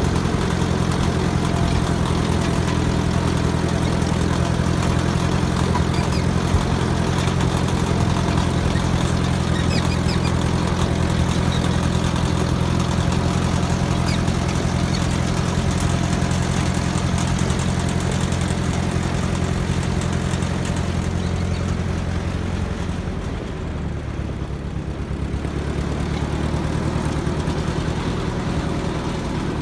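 Small old tractor's engine running steadily while driving along a gravel lane. About three-quarters of the way through its note drops and it runs quieter for a few seconds as the tractor slows, then picks up slightly.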